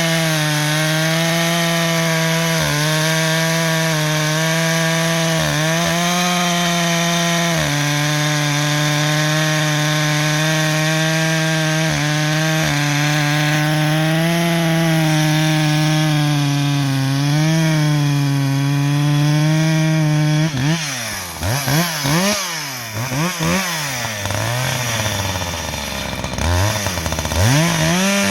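Husqvarna 562XP two-stroke chainsaw running at full throttle while cutting wood, with a few brief dips in revs. About two-thirds of the way in the revs fall and the throttle is blipped up and down for several seconds, then the saw goes back to full speed near the end.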